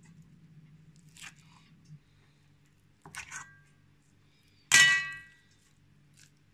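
Metal spoon knocking against an enamel bowl: a light ringing tap about three seconds in, then a loud clang near the five-second mark as the spoon is set down in the bowl, ringing briefly before fading.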